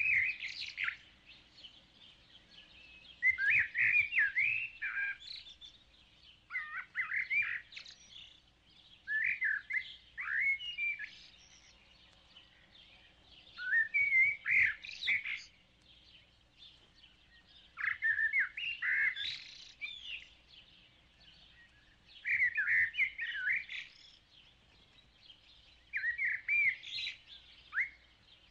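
A songbird singing short warbling phrases of quick up-and-down notes, one phrase every three to four seconds with pauses between.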